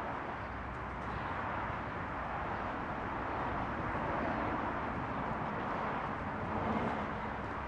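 Steady rush of passing street traffic, with no distinct hits standing out.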